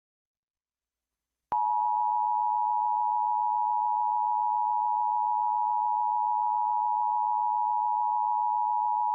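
Emergency Alert System attention signal: a loud, steady two-tone alarm that starts about a second and a half in, after a short silence, and holds unchanged. It marks an EAS statewide required monthly test.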